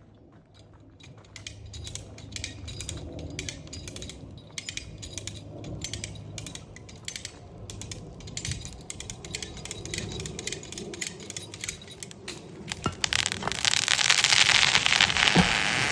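Cut ash tree's wood cracking and popping in a long series of sharp cracks as the trunk gives way. About thirteen seconds in comes a louder rushing crash of branches that keeps going.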